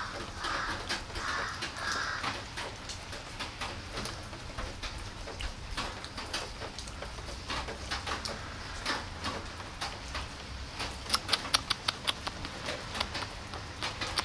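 Cat chewing and lapping wet food from a plastic tub, a run of short wet clicking chews that grows loudest about eleven seconds in, over a light hiss of rain. A crow caws a few times in the first two seconds.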